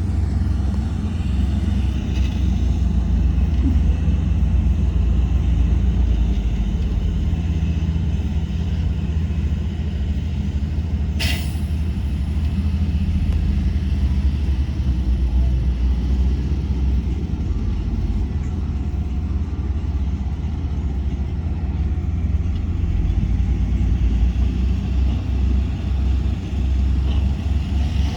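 Heavy diesel engine of earthmoving machinery running steadily with a low rumble. A brief sharp sound cuts in about 11 seconds in.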